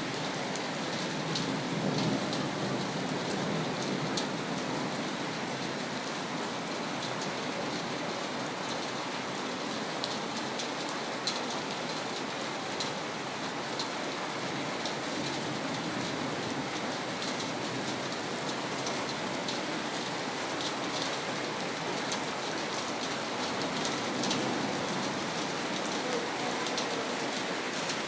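Steady rain falling on a hard surface, with scattered sharp drop ticks over a continuous hiss.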